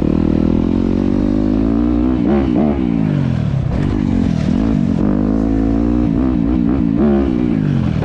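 Dirt bike engine under throttle, its pitch climbing and dropping as the rider opens and closes the throttle: one longer rev and fall a couple of seconds in, then several quick blips later on.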